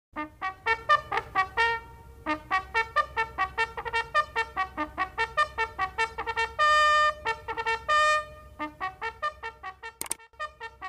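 Intro music: a brisk trumpet fanfare of many quick short notes, with two longer held notes a little past the middle. It breaks off with a sharp click about ten seconds in.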